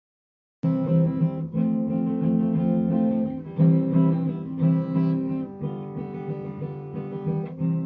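Acoustic guitar strumming chords in a steady rhythm, starting about half a second in after a moment of dead silence.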